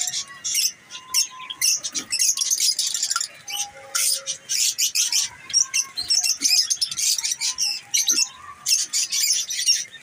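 A colony of Java sparrows in an aviary chirping continuously in quick, high-pitched calls, with a few low knocks as a clay nest pot is handled.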